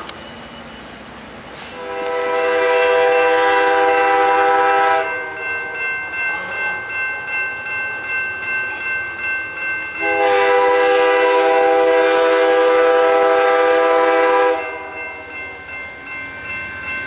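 Amtrak P42DC diesel locomotive's multi-chime air horn sounding two long blasts for the grade crossing as the train approaches: the first starts about two seconds in and lasts a little over three seconds, the second starts about ten seconds in and lasts about four and a half. Between and after the blasts a grade-crossing warning bell rings in a quick, even pulse.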